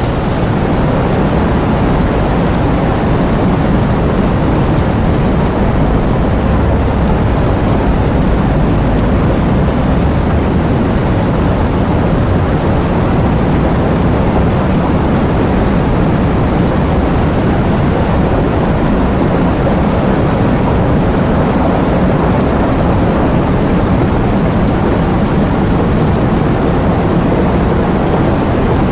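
Heavy rain falling steadily: a dense, even wash of noise with most of its weight low, like a deep rumble under the patter.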